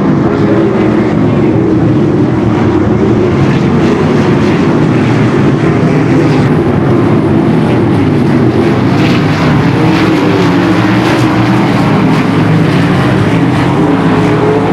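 A field of 410 sprint cars, 410-cubic-inch methanol-burning V8s, running together around the track. The engines' pitches overlap and rise and fall slightly as the cars circulate.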